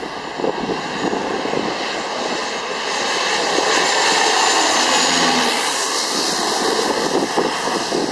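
de Havilland Canada DHC-6 Twin Otter's two turboprop engines passing low overhead on landing approach, growing louder to a peak about four to five seconds in. A high whine drops slightly in pitch as it goes by, then fades.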